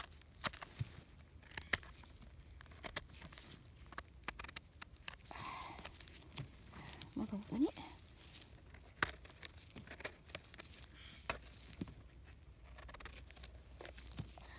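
A knife trims and scrapes the stem of a bolete mushroom held in plastic-gloved hands, with the crinkle of the gloves and the crackle of conifer needles and debris: a run of small clicks and scrapes. A brief low hum-like sound comes a little past halfway.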